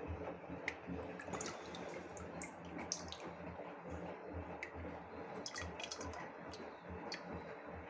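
Young homemade red grape wine dripping and trickling through a cloth strainer as the fermented must is filtered, a faint patter of drips with small wet ticks scattered through it.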